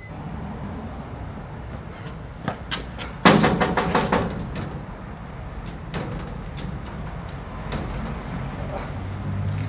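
Hand banging on a sheet-metal house door: a couple of light knocks, then a quick loud flurry of about eight blows about three seconds in, then a few single knocks later on.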